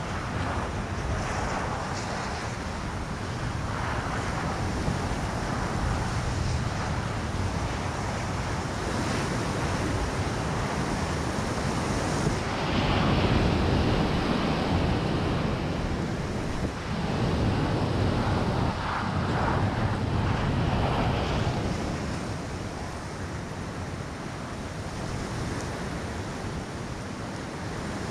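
Wind gusting over the microphone of a crashed drone's camera lying in the grass, a rough rushing noise that swells twice in the middle and eases off near the end.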